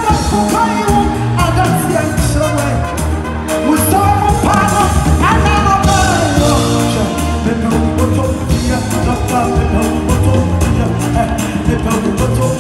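Live gospel music through a concert PA: a woman singing lead in long, sliding phrases over a band with drum kit and a steady bass line.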